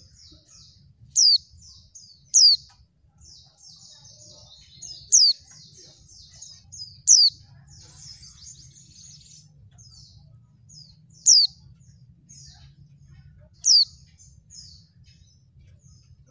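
Female white-eye (pleci) calling: six loud, sharp notes that slide downward in pitch come at irregular intervals over soft, continuous twittering chatter. It is the kind of female call played to prompt male white-eyes to answer and sing.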